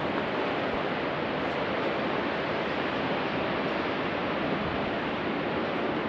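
Steady wind rushing over the microphone, a loud even roar with a flickering low rumble.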